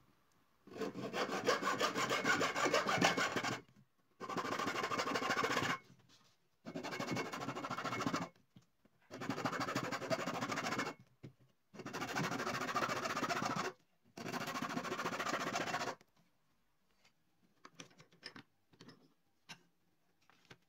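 Hacksaw blade sawing notches across the spine of a stack of paper clamped in a wooden press, cutting the holes for sewing the binding. Six spells of quick back-and-forth strokes with short pauses between them, the first the longest. After that come a few faint clicks and rustles as the paper block is handled.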